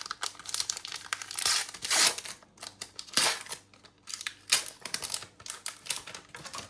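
Foil trading-card pack wrapper crinkling and rustling as it is handled and torn open, in irregular bursts with the loudest stretches about one and a half to two seconds in and again near three and four and a half seconds.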